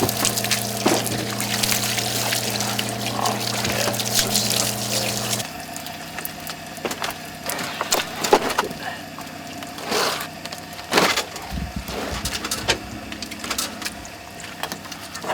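Water pouring or spraying in a steady rush over a steady low hum, both cutting off about five seconds in. Then scattered knocks and clatter of things being handled.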